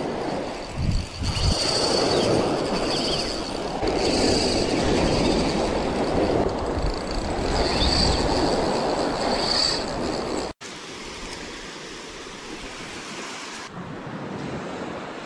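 Surf breaking and washing up a beach, with wind on the microphone, a loud steady rushing noise. It cuts off abruptly about ten seconds in to a much quieter, faint background.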